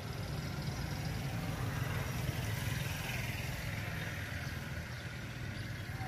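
A motor vehicle's engine running on the road close by: a steady low hum under a wash of road noise, swelling a little toward the middle.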